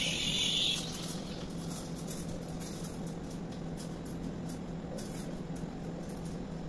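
Gemilai espresso machine running: a sharp hiss of steam for about the first second, then a steady low hum with faint hiss.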